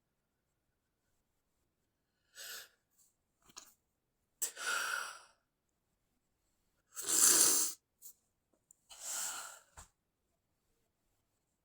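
A person's stifled sneezes: three short, sharp bursts about two seconds apart, the middle one the loudest, with a brief breath a little earlier.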